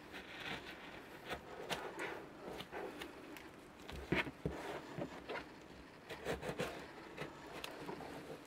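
Hands pressing and rubbing a taped Depron foam moulding on its plug: irregular crinkles, scratches and small clicks of tape and foam, the loudest about four seconds in.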